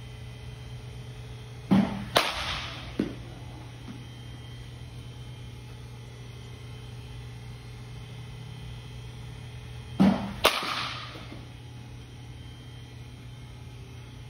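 Baseball bat hitting balls, twice about eight seconds apart: each time a pair of sharp knocks about half a second apart with a short ring, the second hit followed by a fainter knock. A steady low hum underneath.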